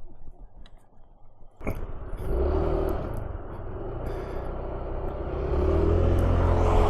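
A 125 cc motor scooter engine starts suddenly about one and a half seconds in and the scooter pulls away, its engine note rising as it accelerates.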